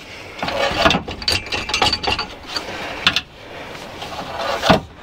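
Irregular metallic clicks, clinks and knocks of steel exhaust clamp brackets being handled and fitted around the exhaust pipes under a car, with a louder knock near the end.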